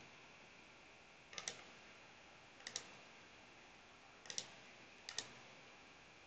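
Four faint computer mouse clicks, each a quick double tick of press and release, spread unevenly over a few seconds above a steady low hiss.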